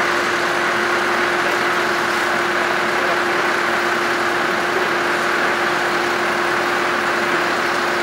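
Tractor engine running steadily at a constant speed, powering a Tajfun forestry winch, with a single unchanging hum over a wash of engine noise.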